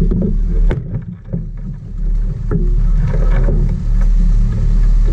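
Sport-fishing boat's engines running with a steady low rumble, with a few sharp knocks in the first couple of seconds.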